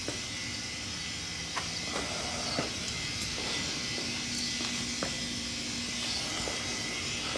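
Steady hiss with a faint hum that comes and goes, and a few light clicks and taps.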